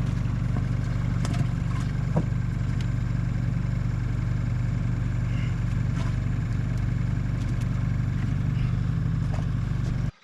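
Boat outboard motor running at a steady speed, with a few light knocks over it. It cuts off suddenly near the end.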